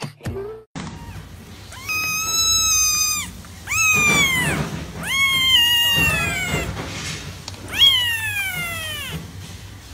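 Young kitten meowing: four long, high-pitched calls, the first held fairly level and the others sliding down in pitch at the end.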